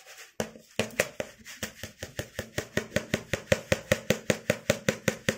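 Pink plastic basin of rice jiggled and knocked in a fast, even rhythm, about five knocks a second, growing louder, with the rice shifting inside. The basin is being shaken so the rice levels out and the weevil dust settles to the bottom.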